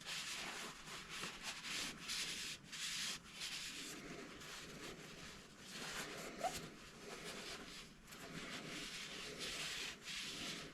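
Wiping down a rifle scope's tube to clear off lapping paste residue: faint, repeated rubbing strokes at an uneven pace.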